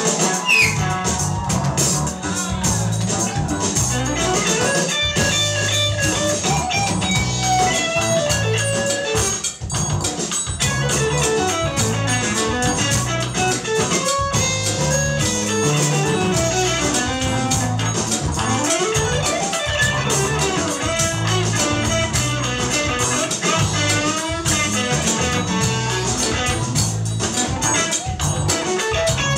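Live band playing music with drum kit and hand percussion.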